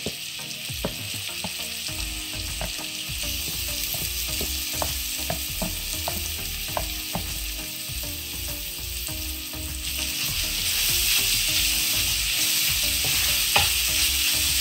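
Soya chunks sizzling as they fry in hot oil in a metal pan, with the knocks and scrapes of a wooden spatula stirring them. The sizzle grows louder about ten seconds in.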